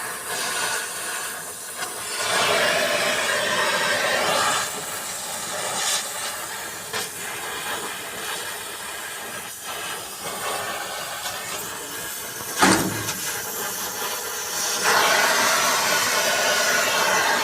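Oxy-acetylene gas welding torch flame hissing steadily while two metal sheets are joined. It grows louder for a couple of seconds near the start and again near the end, with one sharp pop about two-thirds of the way through.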